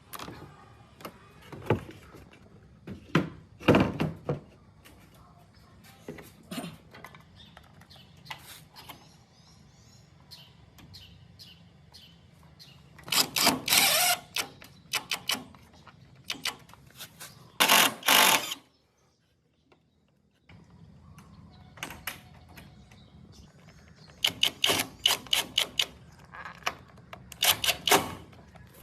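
A series of knocks and clicks, with several bursts of rapid tapping, broken by a couple of seconds of dead silence a little past the middle.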